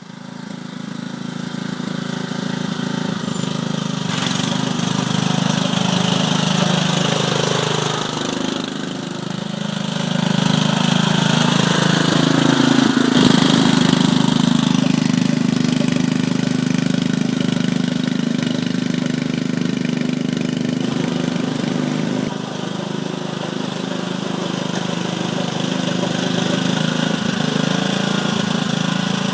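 Muck-Truck mini dumper's small petrol engine running steadily as the machine works across deep mud, fading in at the start, with brief dips in level twice.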